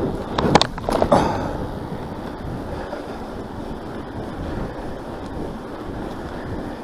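Mountain bike riding noise: wind buffeting the microphone over tyre and drivetrain rumble. A quick cluster of sharp clacks comes between about half a second and a second in.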